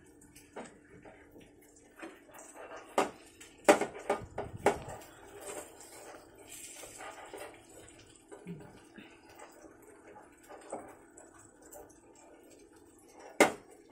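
Kitchen clatter of stainless-steel bowls and utensils knocking and clinking, loudest in a cluster about four seconds in and once sharply near the end, over a steady low hum.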